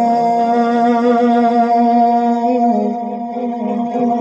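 A man's voice sustaining long wordless notes of a naat through a microphone and loudspeaker, held steady and stepping down to a lower note about two-thirds of the way through.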